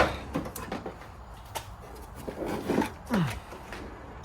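A sharp click, then scattered clicks and rattles of small blade-type automotive fuses being rummaged out of a container. A few brief sounds falling in pitch come about three seconds in.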